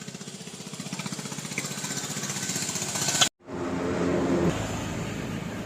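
Hero two-wheeler with a fast rhythmic rattle that speeds up and grows louder, the noise of a dry speedometer cable. It cuts off suddenly about three seconds in, and a steadier running sound follows.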